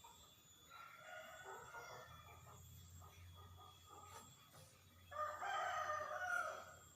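A bird calling twice: a faint call about a second in, then a louder, longer call about five seconds in.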